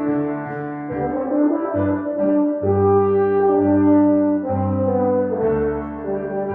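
Instrumental music of slow, held chords with a brass-like tone and a bass note that changes every second or so.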